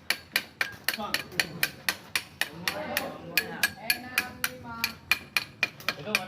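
A hand hammer striking steel in a steady rapid rhythm, about four blows a second, each blow ringing briefly.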